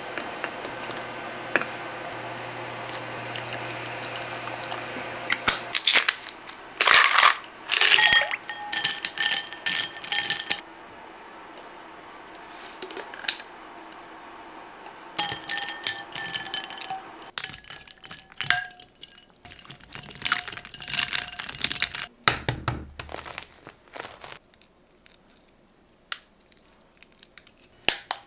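Eggs cooking in a pot of water on the hob with a steady hum for the first few seconds, then a run of clinks as eggs and cooking tongs knock against the pot and a glass bowl of ice water, the glass ringing on after some strikes. Toward the end, small cracks and crackles of boiled-egg shells being broken.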